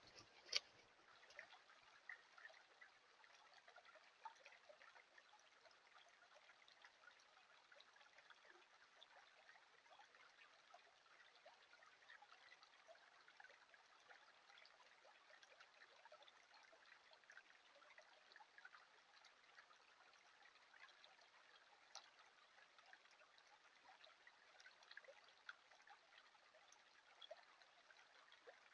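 Faint trickle of a shallow creek running over a gravel riffle, with a single sharp click about half a second in.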